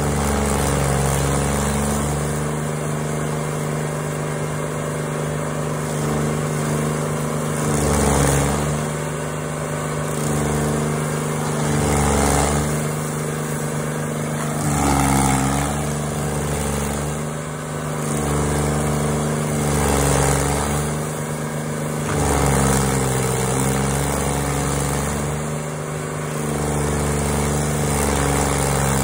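Intimidator stump grinder's gas engine running hard while the cutter wheel is swept back and forth across a tree stump. Every few seconds the engine note dips under load and a harsher grinding rises as the teeth bite into the wood, then it recovers.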